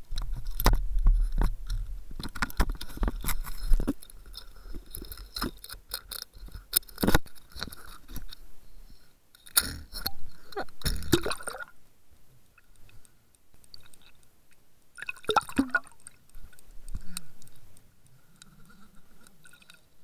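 Knocks and clicks of a camera in its waterproof housing being handled against a boat's rail, then splashing and gurgling as it goes into the sea about ten seconds in. Quieter, muffled underwater sound near the end.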